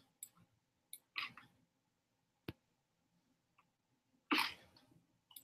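Faint, mostly quiet call audio broken by a few brief sounds: a short soft hiss about a second in, a single sharp click midway, and a louder short hissy sound a little after four seconds.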